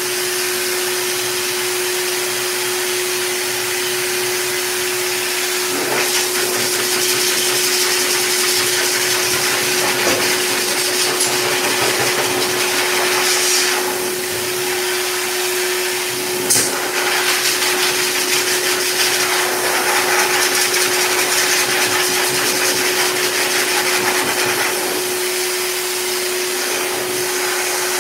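K9 heavy-duty dog dryer blowing hard through its hose and nozzle: a loud, steady rush of air with a constant hum under it. The rush shifts a little as the nozzle is moved over the dog's thick coat.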